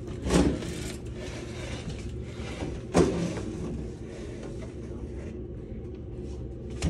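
Steady low hum of room noise, with a short loud bump just after the start and a sharp knock about three seconds in.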